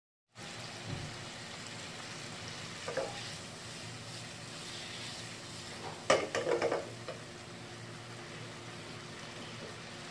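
Spiced curry paste sizzling steadily in mustard oil around fried eggs and potatoes in a non-stick pan. A spatula knocks lightly about three seconds in and clatters against the pan around six seconds in.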